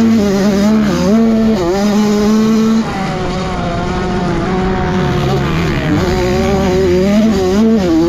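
Honda CR85 two-stroke dirt bike engine running hard on a motocross track, revs held high with brief dips, then backing off about three seconds in and picking up again near the end.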